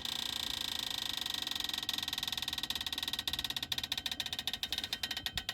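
Truck being slowly let down on a jack onto wooden blocks: a steady hiss with fast, irregular clicking and crackling that thickens from about halfway through.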